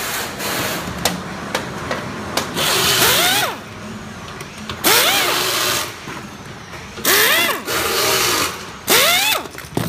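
Pneumatic screwdriver running in five short bursts, each a hiss of exhaust air with a whine that rises and then falls, as it backs screws out of an LED warning bar's housing. Light clicks and handling knocks come between the bursts.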